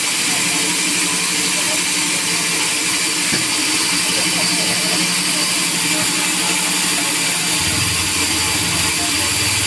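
Sawmill machinery running steadily with a high, hissing whine over a constant hum; a deeper steady hum joins about three-quarters of the way through.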